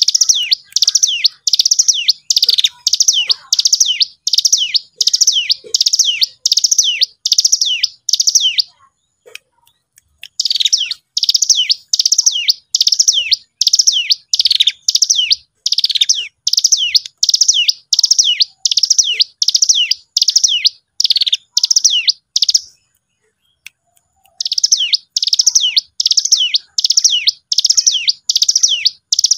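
Ciblek gunung (a prinia) calling: a long series of sharp, down-slurred chip notes, about two a second, broken by two short pauses of a second or two.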